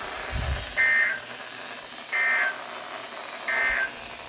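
NOAA Weather Radio SAME end-of-message signal: three short buzzy bursts of two-tone digital data, a little over a second apart, played through a weather radio's speaker, marking the end of the broadcast message.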